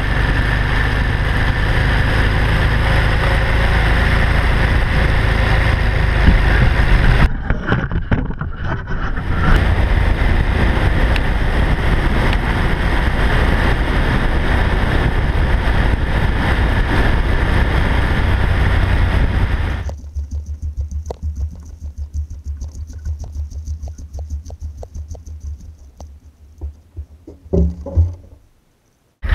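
Motorcycle being ridden at speed: engine and heavy wind noise on a bike-mounted camera, with a short break about seven seconds in. About twenty seconds in the sound cuts to a much quieter stretch of scattered knocks, with a couple of louder thumps near the end.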